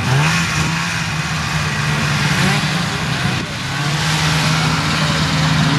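Snowmobile engines running in a steady loud drone that climbs in pitch at the start and dips briefly about three and a half seconds in.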